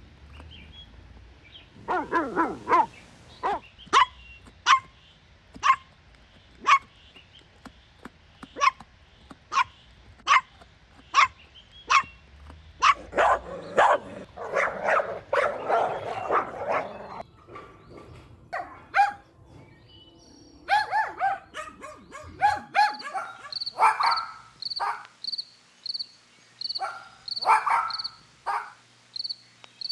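Dog barking: sharp single barks about once a second, then a few seconds of dense, continuous barking and yapping in the middle. In the last third the barks come in quick groups, and a high short chirp repeats about twice a second alongside them.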